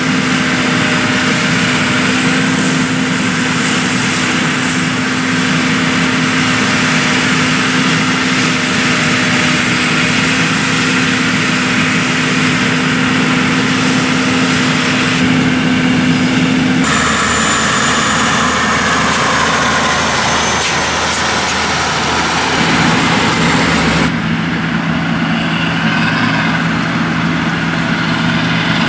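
John Deere combine harvester running in the field, a steady engine drone with a constant hum. The sound changes abruptly twice, a little past halfway and again near the end.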